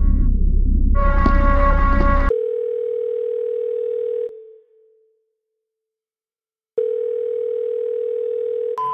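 Telephone line tones. Two long buzzing rings sound over a low rumble. A steady single-pitch tone follows and cuts off a little past the middle. After a couple of seconds of silence it comes back near the end.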